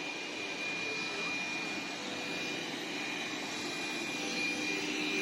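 Dreame F9 robot vacuum running on a carpet with its suction boosted to turbo mode: a steady rush of air with a thin high whine.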